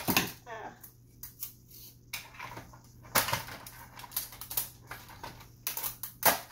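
Tape pulled off a desktop tape dispenser with a quick rip near the start, followed by scattered sharp rips, clicks and rustles as strips are torn and pressed down by hand.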